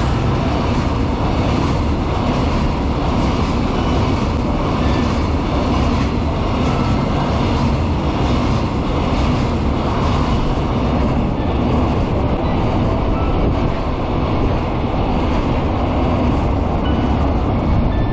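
Freight train of flat wagons loaded with long rails passing through a station, its wheels running over the track with a steady heavy rumble and evenly repeated clacks. The higher rattle dies down over the second half as the end of the train goes by.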